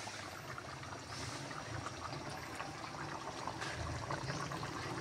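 Coconut-milk stew with bamboo shoots and crab simmering in a pot, a faint steady hiss of bubbling.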